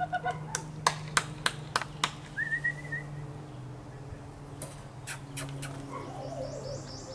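A person clapping their hands in a short run of sharp claps, about three a second, to coax a German Shepherd puppy to come, with a few more claps about five seconds in. A bird chirps briefly between the two runs.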